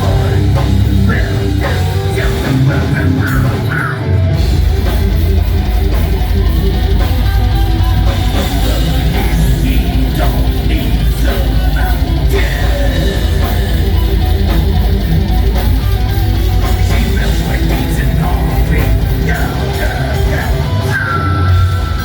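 Rock band playing loud, heavy rock on electric guitar and drum kit, live.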